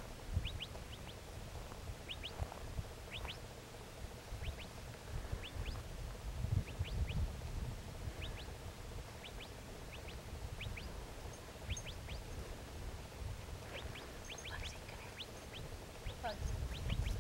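Small birds chirping: quick clusters of two to four short, high notes, about once a second. Under them is a low rumble that swells twice.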